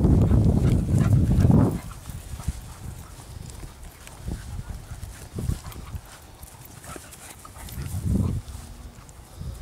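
Dogs growling as they play-fight: a loud stretch of growling for the first couple of seconds, then quieter scattered thumps, and a short growl again near the end.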